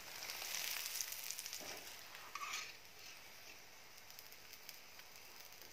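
Egg paratha sizzling in ghee on a tawa while a metal spatula scrapes under it and turns it over. The sizzle is louder for the first few seconds, then settles to a fainter steady sizzle.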